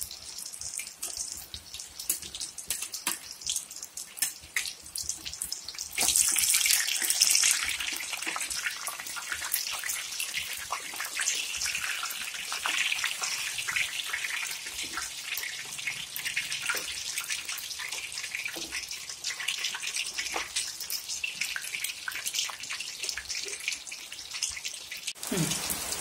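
Batter-coated green bajji chillies deep-frying in hot oil: a steady sizzle full of small crackles, louder from about six seconds in. The chillies are being turned over with a perforated steel skimmer.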